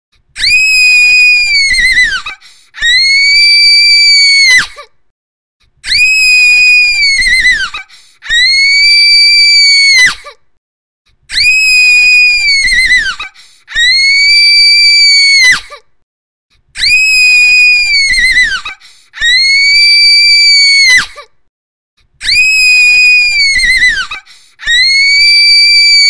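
A girl's very high-pitched, annoying scream, repeated about ten times. Each scream is held for about two seconds and falls off at the end, with short silent gaps between them in pairs.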